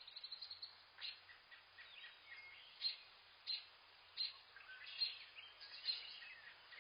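Several birds calling: a quick run of short high chirps at the start, then single sharp high calls about once a second, with softer gliding whistled notes underneath.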